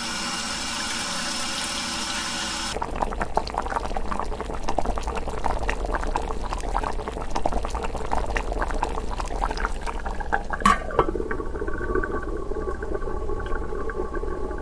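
A small toy-kitchen faucet running water into a plastic cup for about three seconds, then water bubbling at the boil in a miniature pot of beans, with a dense crackle of popping bubbles. A sharp click about two-thirds of the way through as the lid goes on, after which the bubbling goes on, steadier and more muffled.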